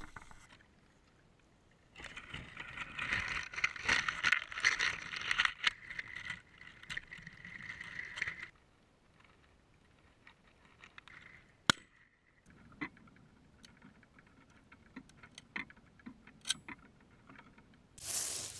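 Dry grass and a ghillie suit rustling and crackling as a person crawls through it: dense for about six seconds, then fainter, scattered crackles. A single sharp click sounds a little under halfway, and near the end the sound changes abruptly to a louder hiss.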